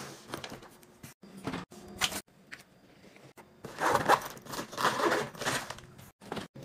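Zipper of a fabric lunch bag being pulled open in two long strokes about four and five seconds in, after a few short handling knocks and rustles.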